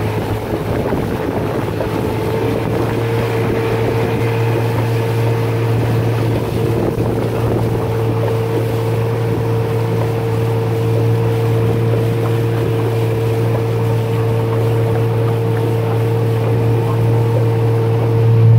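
Small boat's outboard motor running steadily at speed, a continuous drone, with wind on the microphone and rushing water.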